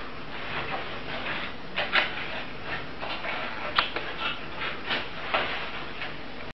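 Irregular light clicks and knocks over a steady background noise, two of them louder about two seconds and four seconds in.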